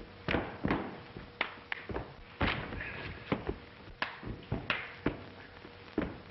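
A scuffle: an irregular run of thuds and knocks, about a dozen in six seconds, over a faint steady hum.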